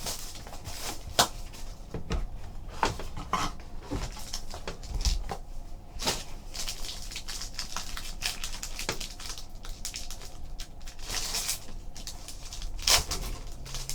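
Trading-card packaging being handled: scattered light clicks, taps and short rustles as a box of trading cards is opened and the cards are pulled out.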